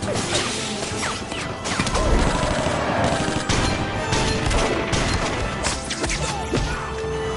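Dense clattering and crashing, with music and a few short sliding tones.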